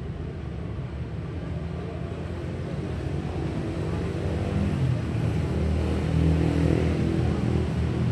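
Street traffic: a motor vehicle's engine rumble that grows louder about halfway through as it passes close, over steady background traffic noise.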